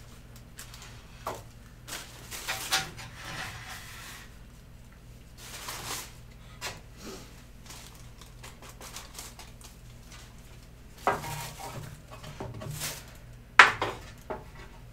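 Wooden boards being handled and set down: scattered knocks and clatter of wood on wood, with rustling of plastic bags, and one sharp knock near the end.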